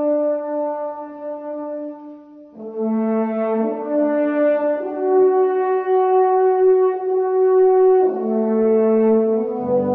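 Slow instrumental music of long held, horn-like chords that change every few seconds, with a brief dip about two and a half seconds in and a fade near the end.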